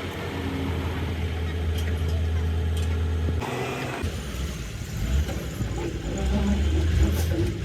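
An engine running with a steady low rumble, which breaks off about three and a half seconds in for a short hiss and then picks up again.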